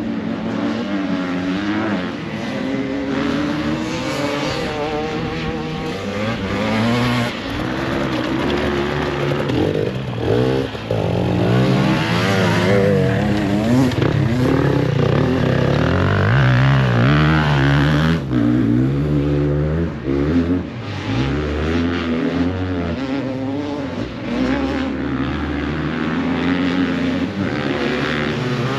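Enduro dirt bike engines revving hard, rising and falling in pitch as riders work up a gravel climb. The loudest stretch is a bike passing close in the middle.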